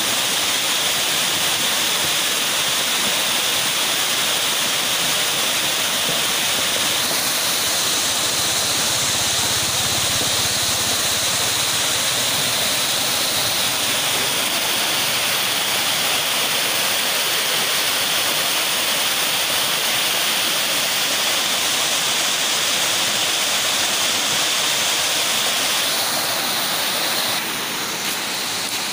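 Front of a flash flood: muddy floodwater and debris rushing and churning down a river channel in a steady roar of water. It eases slightly near the end.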